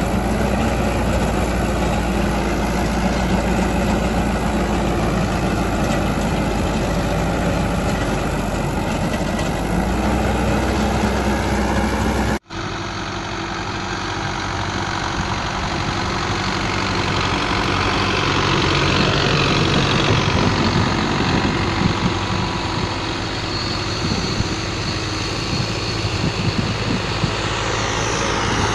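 Diesel farm tractor engines running steadily while working a field. The sound breaks off abruptly about halfway through and resumes on a different tractor, which gets somewhat louder for a few seconds after that.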